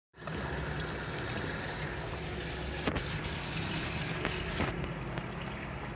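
Electrolux LT09B washing machine running on its jeans cycle: a steady low hum with a noisy wash underneath, and a couple of sharp knocks about three and four and a half seconds in.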